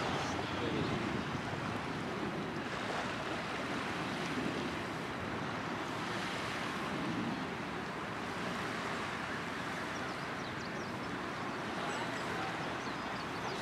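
Steady beach ambience of surf and wind, with wind rumbling on the microphone.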